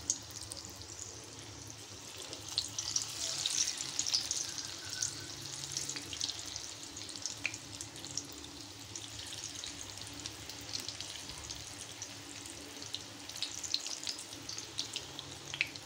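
Gram-flour-battered green chillies deep-frying in hot oil: a steady sizzle full of small pops and crackles, busier about three seconds in and again near the end.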